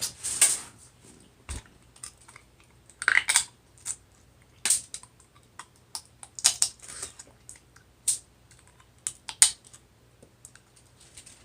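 Close-miked eating of a seafood boil: irregular wet mouth smacks, sucking and clicks, a dozen or so short bursts with brief pauses between.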